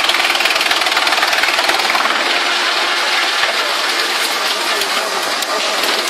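5–8 t/h wood chipper running and chipping wood: a loud, steady machine noise with dense, rapid ticking.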